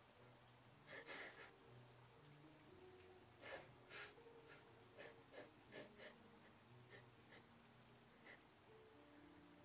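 A woman crying with a garment pressed to her face: about a dozen short, irregular sniffs and sobbing breaths, the loudest two in quick succession a few seconds in, over soft sustained background music.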